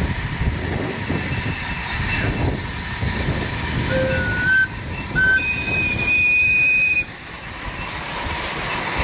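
A 7.25-inch gauge coal-fired Clishay beam-engine live steam locomotive running past with its ride car, exhaust beats and wheel clatter going steadily. A steam whistle sounds a short toot about four seconds in, another brief one a second later, then a long, higher steady note for about a second and a half.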